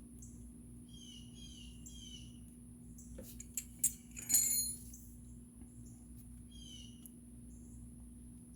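A few sharp metal clicks and a ringing clink about halfway through, from the spark plug removal tool working on the Yamaha Raptor 700's spark plug. A bird chirps in short falling calls before and after, over a low steady hum.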